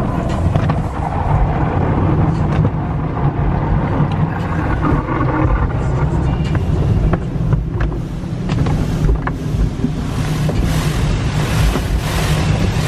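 Automatic car wash heard from inside the car: water spray and wash brushes beating on the windshield and body over a heavy low rumble. Near the end the spray hiss comes in rapid repeating surges.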